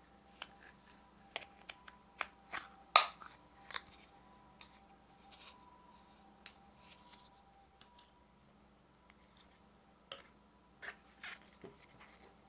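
Plastic pudding cups and lids being handled and set down on a table: scattered light clicks and taps, the loudest knock about three seconds in, with a few more clicks near the end.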